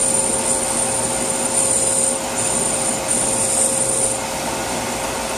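Bosch brake lathe running, its motor and spinning brake rotor giving a steady hum. A thin, high-pitched scraping whine from the cutting bits touching the rotor face comes and goes, and stops about four seconds in, as the cut depth is advanced to find a concentric cut.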